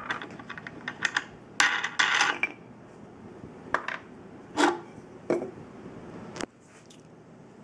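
Clicks and knocks of metal hardware and wooden blocks being handled as the clamps come off a homemade wooden spring compressor. There is a quick run of clinks about two seconds in, then a few single knocks.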